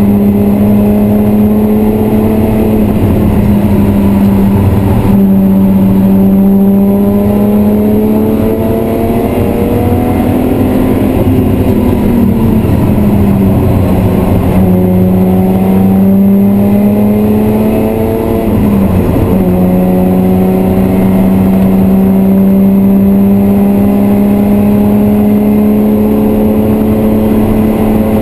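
BMW M3 E36's 3.0-litre straight-six engine running hard on track, heard from inside the cabin. Its pitch climbs slowly, sags about 13 seconds in and drops sharply about 19 seconds in before climbing again.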